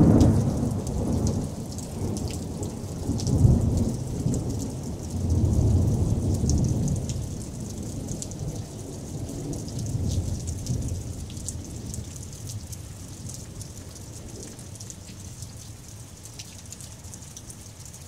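Heavy rain falling, a steady hiss with fine droplet patter. Low rumbles swell and fade several times in the first half and die away toward the end.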